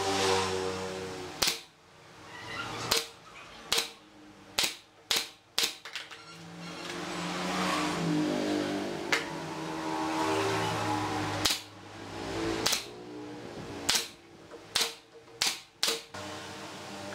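Pneumatic brad nailer firing nails into a wooden chair frame: about fourteen sharp shots at irregular intervals, several in quick succession.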